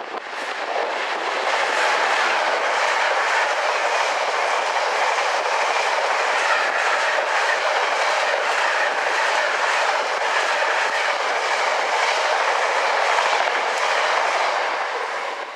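A Freightliner freight train of bogie coal hopper wagons, hauled by a Class 66 diesel, rolling past at speed. Wheels rumble steadily with a fast clickety-clack over rail joints and pointwork, and the noise drops away near the end as the last wagon goes by.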